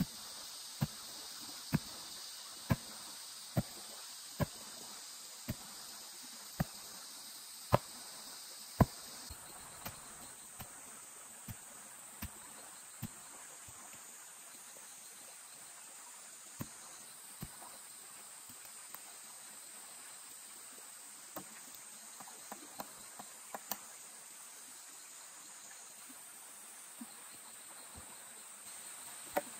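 Forest insects chirring steadily in a high band, with sharp knocks, about one a second for the first nine seconds and then scattered and fainter, like tool strikes on wood.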